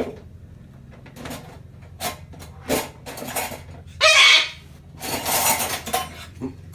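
Scattered clinks, knocks and clatter of tableware, with a louder burst about four seconds in and a stretch of busier clattering after it.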